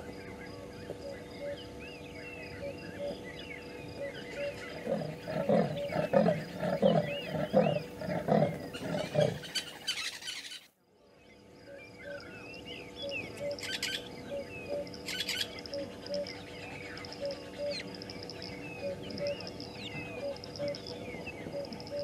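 Leopard giving its sawing call: a run of about seven rough strokes at an even beat, starting about five seconds in. Birds chirp throughout.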